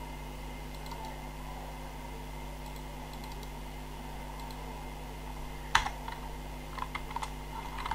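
Computer keyboard and mouse clicks over a steady electrical hum and hiss. One sharp click comes a little before six seconds in, and a few light key taps follow near the end.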